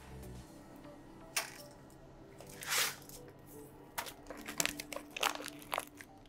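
Faint background music with held tones, under a short burst of noise about three seconds in and a run of small clicks and knocks over the last two seconds.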